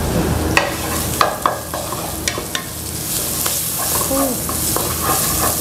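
Ground chili spice paste sizzling as it fries in oil in a frying pan, with a spatula stirring it and knocking and scraping against the pan in short, irregular clicks. The paste is being sautéed until cooked.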